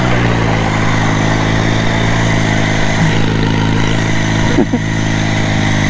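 Riding lawn mower's engine running loud through an aftermarket exhaust. Its pitch drops during the first second, then holds steady.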